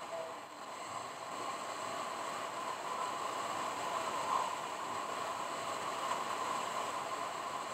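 Steady road and wind noise of a car driving, an even hiss with no distinct events.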